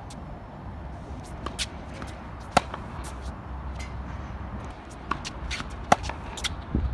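Tennis ball struck with rackets on an outdoor hard court: a string of sharp pops and bounces, the loudest about two and a half seconds in and just before six seconds in, the latter as a forehand return is hit. Shoes scuff on the court in between, over a low wind rumble.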